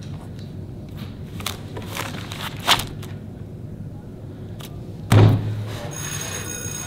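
A pencil tapping and scratching on a spiral notebook on a desk: scattered short clicks, then a heavy thump about five seconds in.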